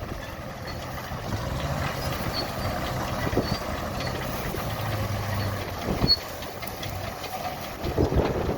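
Vintage combine and tractor engines running steadily, a low hum with a few short thumps.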